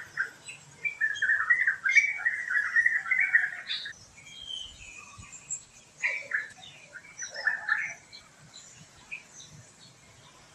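Birds chirping and chattering: a dense run of quick notes about one to four seconds in, then a quieter spell and another burst of calls with falling notes around six to eight seconds.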